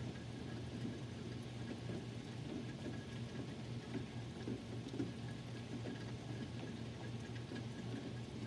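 Steady rain falling during a thunderstorm, with small scattered drip ticks over a low steady hum.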